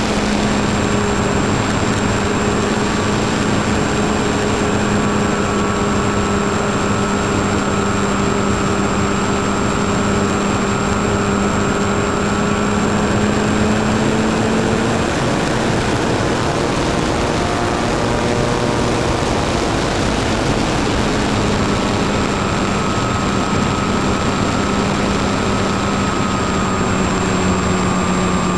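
Motor and propeller of a model airplane heard from on board: a steady hum over a rush of wind. About halfway through, the hum fades and wavers for several seconds, then comes back at full strength. A thin, steady high whine runs underneath.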